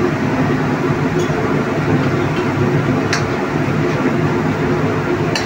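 Steady drone of a commercial kitchen's running burners and ventilation, with a couple of light clicks as the gravy is ladled into a bowl.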